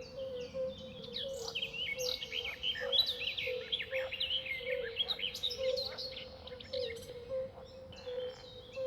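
Several birds chirping and twittering in quick, high sweeping notes, busiest in the middle. Under them, a low call repeats steadily about two or three times a second.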